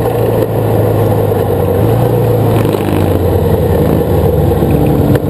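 Autocross buggy's engine running hard at a near-steady pitch, heard from on board with wind and rough-running noise. A short sharp click about five seconds in.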